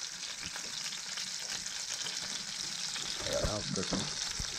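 Flour-dredged catfish fillets pan-frying in a skillet, sizzling steadily.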